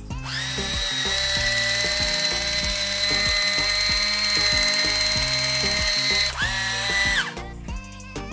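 Kitchen Mama battery-powered electric can opener running with no can fitted: its small motor and gear drive spin up with a rising whine, run steadily for about six seconds and stop, then give one more short run of about a second. Background music with a steady beat plays underneath.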